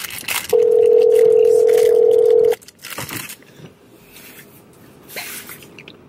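A single steady electronic beep tone, about two seconds long, that cuts in and cuts off abruptly.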